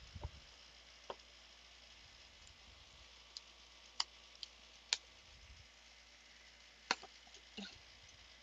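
Faint, scattered clicks and taps of a cardboard shipping box being cut open with a knife and its flaps handled, about seven sharp ticks spread over several seconds.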